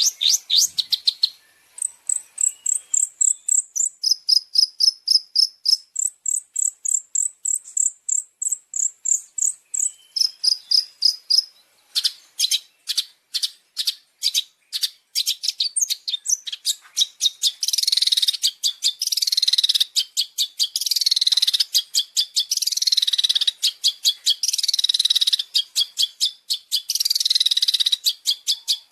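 High, rapid bird chatter: quick repeated notes and short trills, then from about halfway a run of repeated descending calls, roughly one a second, over a fast ticking pulse. Masteran song used to train long-tailed shrikes (cendet), stacked with fill-in calls.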